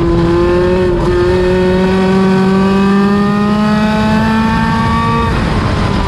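Midget race car engine running hard on track, its pitch climbing steadily as it accelerates, with a brief break about a second in. It cuts off sharply about five seconds in as the throttle is lifted, leaving fainter engine sound beneath.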